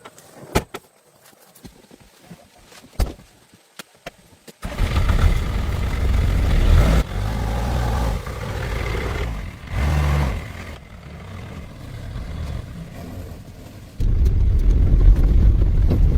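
A few light clicks and knocks, then, about four and a half seconds in, an old truck's engine starts running with a loud, low rumble that shifts abruptly in level several times.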